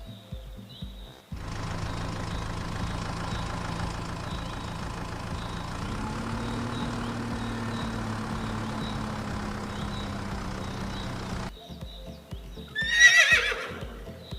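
A steady droning hum for about ten seconds, then a short descending horse whinny near the end, a sound effect for a toy horse figurine.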